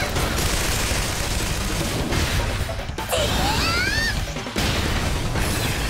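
Action-scene soundtrack: background music mixed with dense crashes and impacts. About three seconds in, a pitched sound glides upward for about a second.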